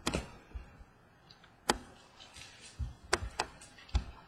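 Trading cards being handled between readings: a few sharp clicks and taps as cards are slid, flipped and set down, about five in all at irregular intervals.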